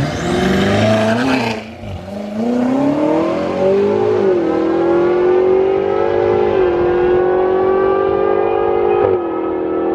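High-powered car accelerating hard down a drag strip, the engine pitch climbing and dipping briefly three times as it shifts up through the gears, after a noisy rush at the launch.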